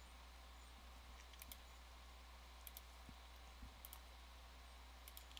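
Faint computer mouse clicks, a few quick pairs about a second apart, over a low steady electrical hum.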